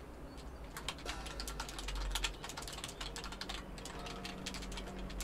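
Fast typing on a computer keyboard: quick irregular runs of key clicks, starting about a second in.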